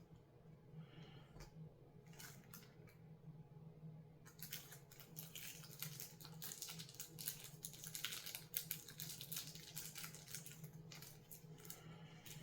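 Faint rustling and small clicks of rocks and their packing being handled, starting about four seconds in, over a low steady hum.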